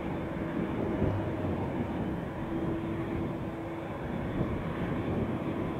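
Twin-engine jet airliner (Boeing 787) with its turbofan engines running steadily at low taxi power: an even rumble with a faint steady hum.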